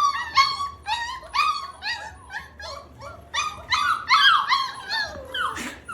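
Several young mastiff puppies whining and yipping together in short, high-pitched cries, overlapping without a break: the frustrated crying of puppies blocked from their food by a low barrier.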